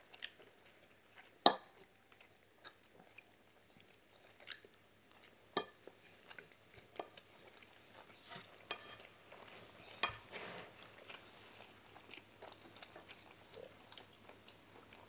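Close-miked eating: soft chewing, with wooden spoons scraping and tapping a plate in scattered sharp clicks. The loudest knock comes about one and a half seconds in.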